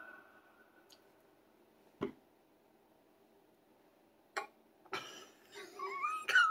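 A song fades out, then near quiet with a few faint clicks. Near the end comes a woman's muffled, high-pitched, wavering squeal through her hand: a scream she is holding in.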